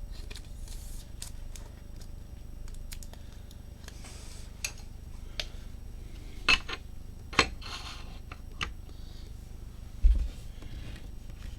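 Trading cards being handled on a table: soft sliding and rustling with a few sharp clicks and taps, and a low thump near the end, over a steady low hum.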